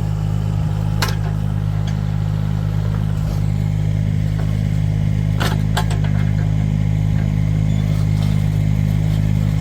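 Excavator's diesel engine running steadily under load while it digs, with a few sharp clanks about a second in and again around the middle.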